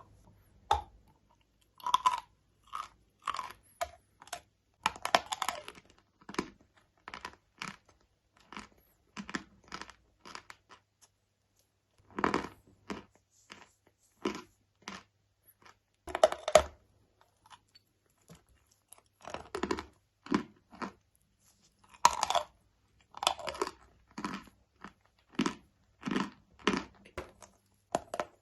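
Dry, crumbly chunks being bitten and chewed very close to the microphone: a run of sharp, irregular crunches with a few louder snapping bites and a brief pause partway through.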